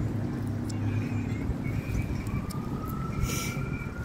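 A distant siren wailing, its pitch rising slowly through the second half, over a steady low rumble.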